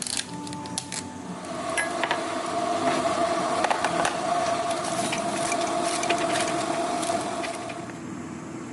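A small kitchen appliance motor hums steadily for about six seconds, starting about a second and a half in and stopping near the end, with clinks and taps of cups and utensils throughout.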